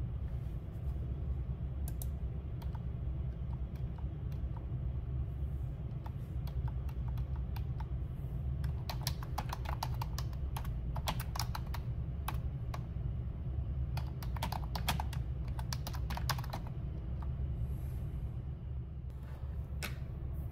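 Typing on a computer keyboard in short runs of keystrokes with pauses between them, over a steady low hum.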